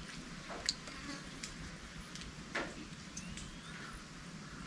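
Light rain, heard as a steady hiss with scattered drops ticking down one at a time, the loudest about a second and two and a half seconds in. A few faint rising chirps sound near the middle.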